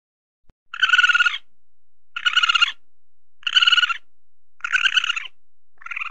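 Weasel calling: a series of short, high-pitched trilling calls, each about half a second long, repeated roughly once a second. There are four in a row, and a fifth starts at the very end.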